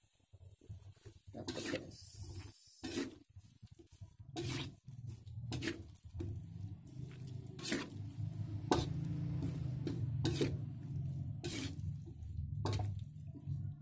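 Spatula stirring mustard greens and tempe in an aluminium wok, clanking and scraping against the wok about once every second or so, over a low steady hum.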